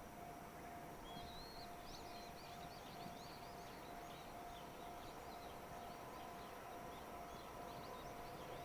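Small birds twittering in a quick run of short, high chirps starting about a second in, over faint outdoor background noise with a steady low hum.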